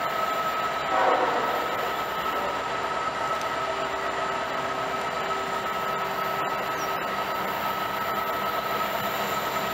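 Diesel locomotives of a freight train running as the train creeps slowly forward: a steady rumble with several held tones, and a brief louder burst about a second in.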